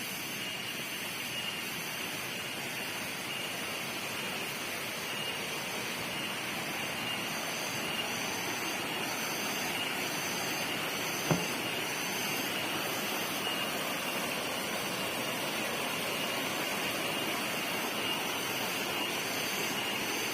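Steady rushing roar of a waterfall about 10 m high, with a single sharp click about eleven seconds in.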